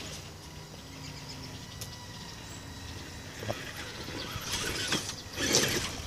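Wraith Spawn RC rock-racer truck's electric motor and geared drivetrain whining as it crawls, with rattling and scraping as its tyres and chassis climb over rocks and logs; a louder scraping burst near the end.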